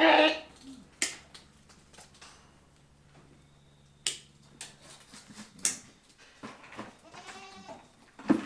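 A Boer goat buck bleats once at the start. A few sharp clicks follow, spaced a few seconds apart, and there is a thump near the end.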